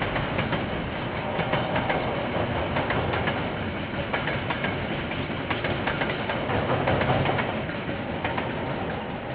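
KiwiRail train rolling past, its wheels clicking irregularly over the rail joints, easing off slightly near the end. Heard through a security camera's microphone.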